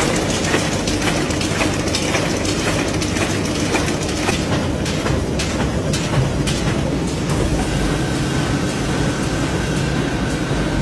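Matchstick-making machinery running with a dense, steady clatter of many quick ticks. A steady high tone comes in about three-quarters of the way through.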